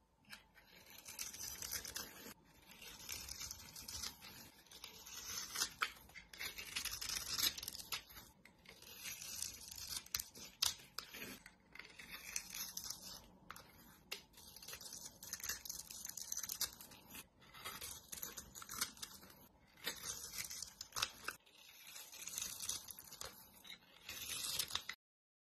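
A knife blade shaving and carving bars of soap: crisp, raspy scraping strokes one after another, with a few sharp clicks as the blade cuts.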